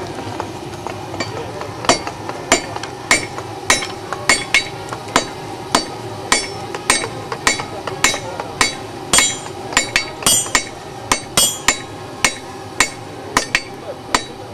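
Blacksmith's hand hammer striking a red-hot iron bar on an anvil: hand forging. A steady run of sharp blows, about two a second, starts about two seconds in.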